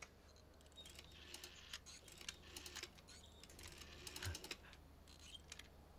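Faint, irregular light clicks and taps from an old candlestick telephone being handled while its line is hooked up, with a soft thud about four seconds in.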